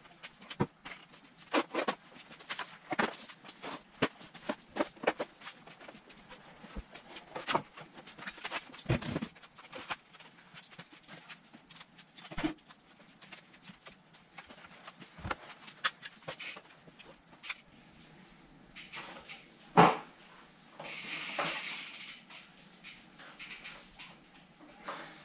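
Scattered knocks and clicks of wooden boards and a mountain bike being handled and set into a homemade wooden manual-practice stand, with one loud thump about twenty seconds in and a brief rushing noise just after it.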